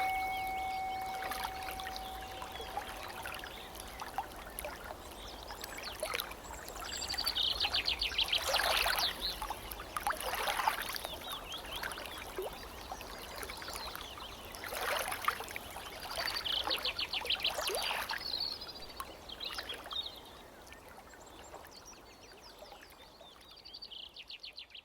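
Birds singing in repeated quick trills over a trickling stream, with a struck bell tone fading away over the first few seconds.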